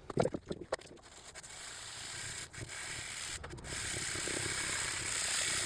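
Fine-grit sanding of an oil-finished walnut surface, a steady scratchy hiss with brief pauses, knocking down the finish's shine; a few light knocks in the first second.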